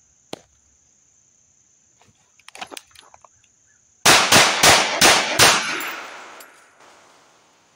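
Five rapid pistol shots from a lightweight Commander 1911 in .45 ACP, fired from the draw about three shots a second, with the echoes dying away over about two seconds. A few soft clicks and rustles come before the shots.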